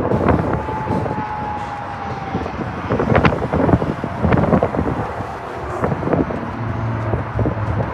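Wind buffeting the microphone in repeated gusts over a steady low engine rumble. A thin whine slowly drops in pitch over the first couple of seconds, and a low hum comes in near the end.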